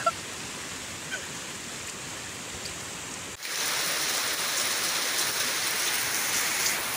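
Steady rush of flowing floodwater, then an abrupt change about halfway through to louder heavy rain pouring down and hissing on wet concrete.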